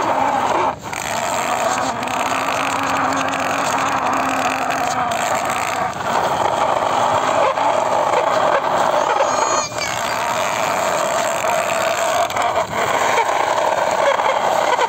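A continuous motor-vehicle engine sound running steadily, briefly dipping about a second in and again near the ten-second mark.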